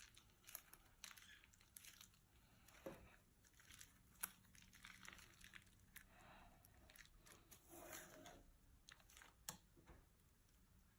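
Faint crinkling of a plastic bag and sticky slime being stretched and pulled, heard as scattered short crackles and clicks.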